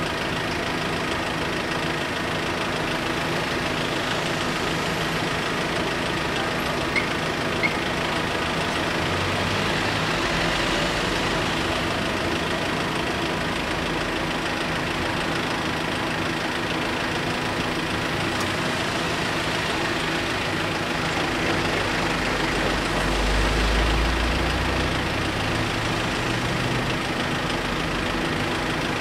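Engines of queued motor vehicles idling steadily, with two short clicks about seven seconds in and a brief swell of low rumble about twenty-three seconds in.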